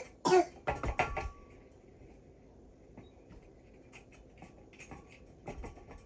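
A short, loud cough-like burst from a person's voice at the start, followed by a few knocks and thumps about a second in, then quiet room sound with faint clicks.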